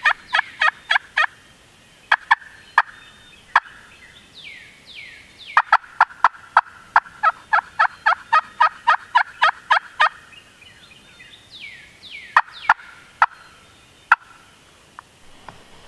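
Turkey yelping: loud, raspy yelps at about four a second, in short runs of a few notes and one long run of about fifteen in the middle. Fainter falling whistled notes of another bird come between the runs.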